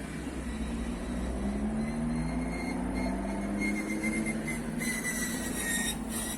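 A car's engine pulling away under throttle, its pitch rising gradually over a couple of seconds and then holding steady.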